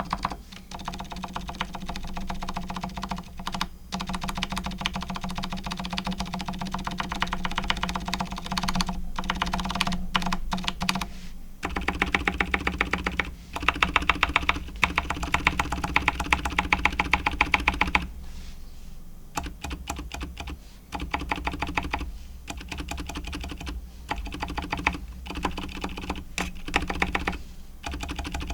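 Continuous typing on a Logitech K855 keyboard fitted with factory-lubed TTC silent Moon White switches and grease-lubed stock stabilisers. The keystrokes come in fast runs with brief pauses, with a faster, louder run in the middle.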